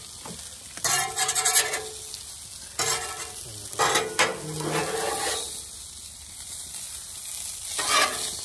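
Eggs and sausages sizzling on a Blackstone steel flat-top griddle, with a metal spatula scraping across the cooktop in several short strokes as an omelet is folded.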